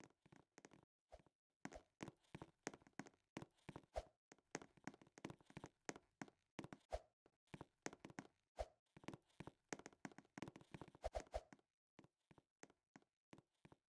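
Faint, irregular tapping and knocking: many small clicks a second, thickest through the middle and thinning out near the end.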